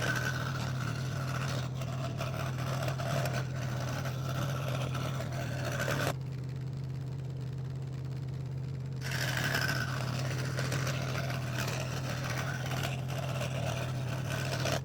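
Scroll saw running with a steady hum while its blade cuts 3 mm craft plywood puzzle pieces; the cutting noise stops for about three seconds past the middle, leaving only the hum, then starts again.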